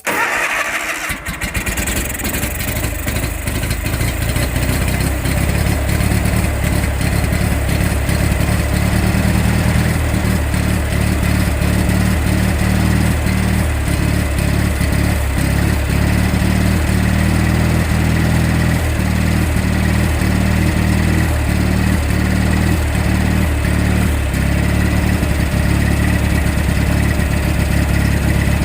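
Kohler Magnum 18 twin-cylinder lawn tractor engine catching on starting fluid sprayed down the carburettor, then settling into a steady run.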